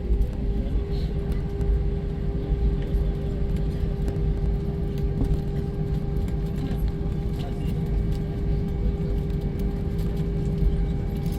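Cabin noise inside an Airbus A320-200 airliner: a steady low rumble with a constant hum from the running engines.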